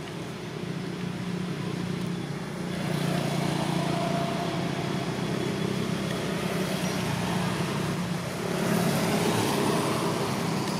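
Road traffic: a motor vehicle's engine hum with tyre and road noise. It grows louder about three seconds in and again a little past eight seconds, as vehicles pass by.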